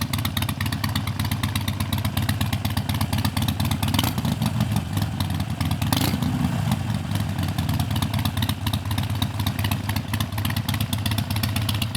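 Harley-Davidson Sportster Iron 883's air-cooled V-twin running steadily at idle through an aftermarket custom exhaust, with a brief rise in revs about six seconds in.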